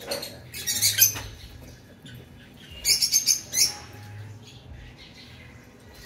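Caged lovebirds giving sharp, high-pitched chirps in two quick clusters of several notes each, about half a second in and again about three seconds in.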